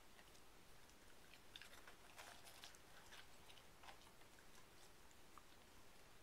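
Faint, irregular crunching and clicking as an Alaskan Malamute eats small snacks from a plastic cup.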